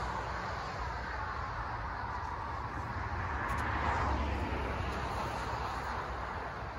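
Steady outdoor background noise: a low rumble under a broad hiss, swelling a little about halfway through.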